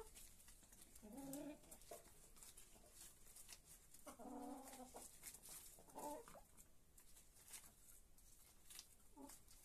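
Hens clucking faintly, four short low calls spread through, the longest about four seconds in, over scattered faint ticks of beaks pecking at lettuce on the ground.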